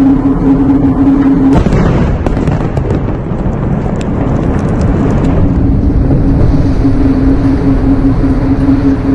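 A large explosion about one and a half seconds in, followed by several seconds of rumbling with scattered crackles, over a steady hum.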